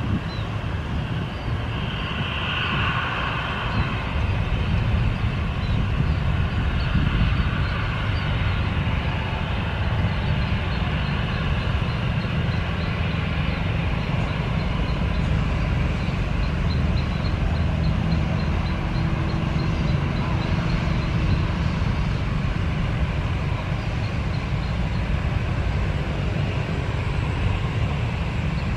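Steady low rumble of airliner jet engines on the runway mixed with road vehicles passing close by.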